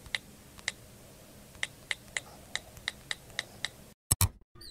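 Short, sharp ticks at irregular intervals, at times several a second, over a faint hiss. About four seconds in, the sound cuts out and two loud clicks follow.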